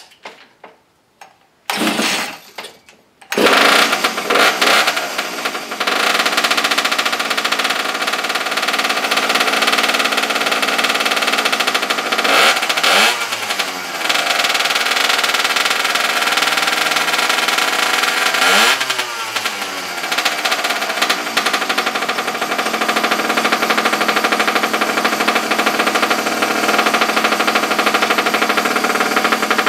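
Small two-stroke pocket-bike engine on a cold start with the choke on: it sputters in two short bursts, catches about three seconds in and keeps running. Twice its speed sags and climbs back.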